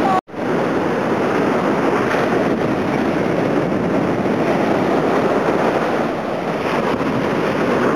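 Surf breaking and washing up a sandy beach, with wind blowing across the microphone, a steady loud rushing noise. The sound cuts out for a split second just after the start.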